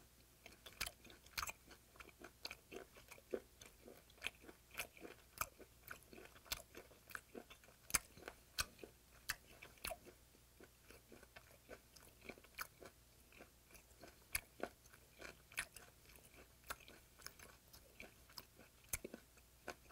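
Close-miked chewing of raw yellow stingray wing sashimi: many small sharp crunches and clicks, a few a second, as the thin cartilage in the firm, chewy flesh breaks.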